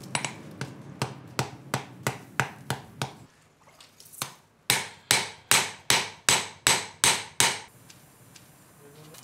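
Hand hammer striking a steel kitchen-knife blade on an anvil, about three blows a second. A run of about ten blows is followed by a short pause, then eight louder, ringing blows.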